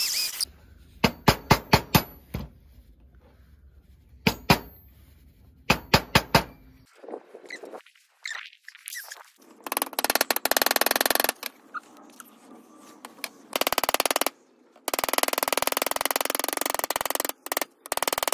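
Small hand hammer striking metal on a copper disc. It gives short runs of sharp taps, then long stretches of very rapid tapping as a flower-pattern steel punch is hammered into the copper. A drill press finishes boring through the disc at the very start.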